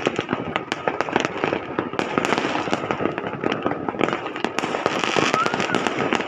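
Fireworks going off in a dense, continuous barrage of many overlapping cracks and pops, with a faint whistle near the end.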